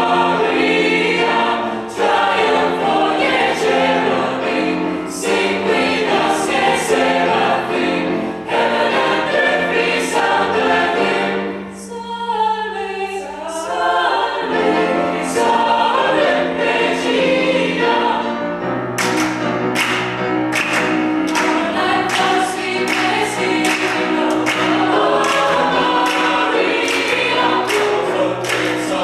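Mixed choir singing an upbeat gospel-style hymn. Near the middle the sound thins briefly to a held low note under a single line. From about two-thirds through, a sharp regular beat runs under the voices.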